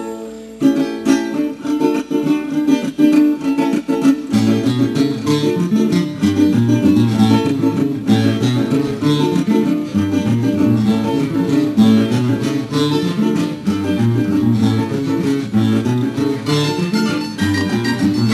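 A tuna ensemble's plucked strings, guitars and bandurrias, playing an instrumental introduction. A lower bass line joins about four seconds in.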